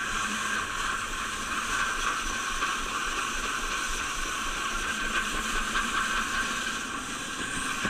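Toboggan sled running fast down a curving metal chute: a steady rushing hiss of the sled on the track.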